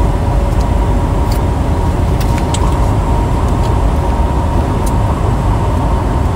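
Engine and road noise inside a semi-truck's cab at highway speed: a steady low rumble with a faint constant whine, and a few light clicks.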